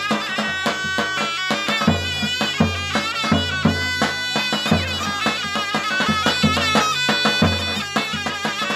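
Zurna playing an ornamented melody with bending, wavering pitch, backed by the deep strokes of a davul bass drum.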